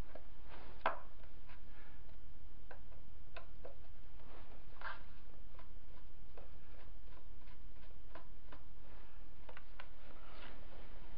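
Irregular small clicks and light knocks as the plastic parts and screws of a G&G F2000 airsoft rifle are handled during disassembly, over a steady low hum.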